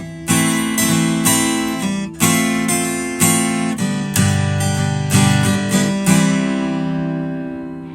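Acoustic guitar music, chords strummed about once a second and left to ring, fading out near the end.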